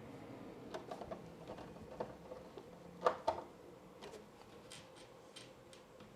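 Small screws being driven with a Phillips screwdriver into the metal lid of a CCTV recorder: scattered light clicks and taps, the loudest pair about three seconds in, over a faint steady hum.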